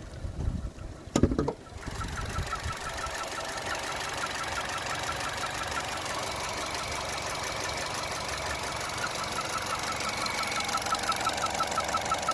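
Chevy Cruze 1.4 turbo engine idling with a fast, rhythmic chirping squeak of about four chirps a second, after a couple of thumps in the first two seconds. The chirp turned out to come from two loose spark plugs.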